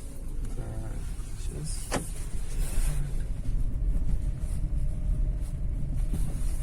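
Lada Vesta driving slowly over a bumpy gravel road: steady low rumble of tyres and suspension, with no knock from the front left now that the suspension part has been replaced.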